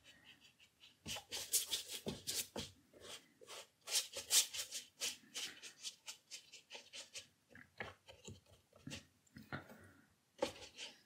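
Watercolour brush stroking and scrubbing across paper: a run of short, irregular scratchy strokes. Near the end the brush works in the paint palette.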